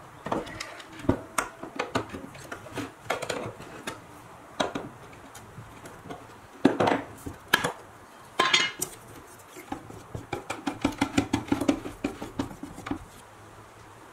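Metal paint can being pried open with a screwdriver: sharp metallic clinks, knocks and scrapes as the lid is worked loose and lifted off. Later comes a rapid run of light clattering taps.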